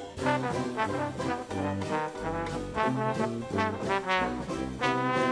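Jazzy background music led by brass, with a steady beat.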